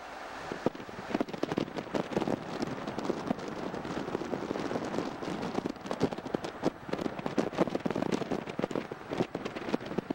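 Vehicle driving on a gravel road: a steady rush of tyre noise thick with irregular crackling and popping of small stones under the tyres.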